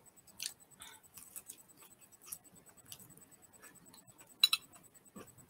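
Chewing a sticky palitaw rice cake with crunchy peanuts: faint, scattered small wet clicks and crunches, with a sharper double click about four and a half seconds in.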